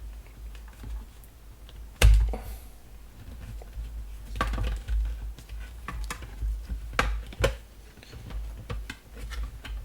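Parts of a Dyson fan knocking and clicking as they are handled and fitted back together, with one sharp knock about two seconds in and several lighter clicks after it.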